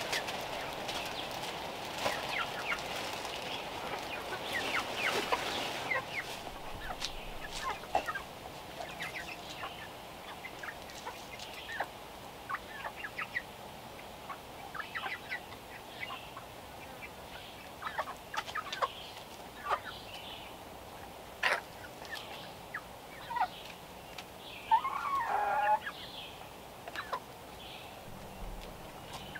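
Chickens clucking as they feed, in short scattered notes, with one longer wavering call near the end.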